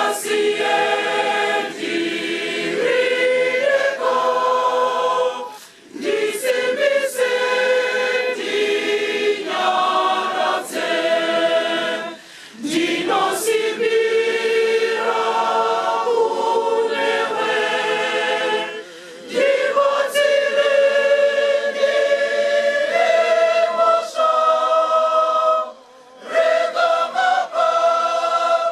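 Church choir of women singing a hymn together, in sung lines with short breaks between them.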